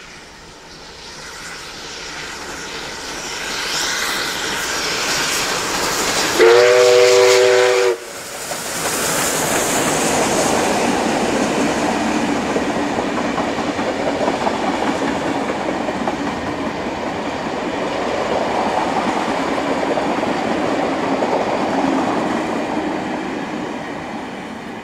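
A passenger train headed by a diesel locomotive and steam locomotive 5917 passing at speed. The rumble builds as it approaches, and about six seconds in comes a single loud signal blast lasting about a second and a half. Then comes the steady rumble and clickety-clack of the carriages rolling by, fading near the end.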